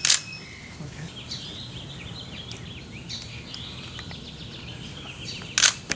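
Canon DSLR shutter clicking once at the start and once near the end. Between the clicks a small bird twitters in a quick run of short, high chirps.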